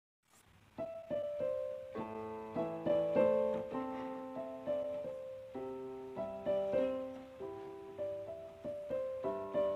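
Background piano music: a slow melody of single struck notes and chords, starting under a second in after silence.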